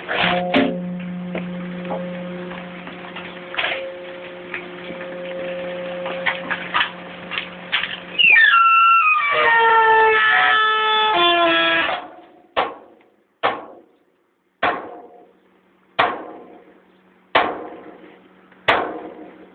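VDK Pusher 2000 refuse-truck compactor at work: a steady hum with scattered clicks, then about eight seconds in a loud squeal of several pitches that slides down and holds for some four seconds, dry metal parts grinding for want of lubrication. After it come sharp knocks, one about every second and a bit.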